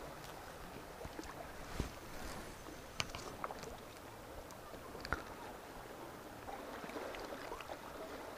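Small waves lapping against a rocky lake shore, a low steady wash. A few faint sharp clicks come about two, three and five seconds in.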